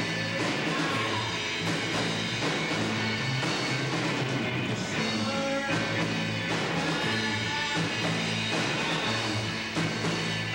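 Rock band playing live: electric guitars and a drum kit, with steady bass notes underneath.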